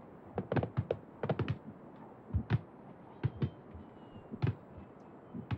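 Fireworks going off: irregular sharp pops and bangs, some coming in quick clusters of two or three.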